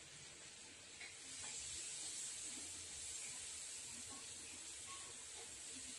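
Faint steady hiss that swells a little in the middle, with a few soft ticks.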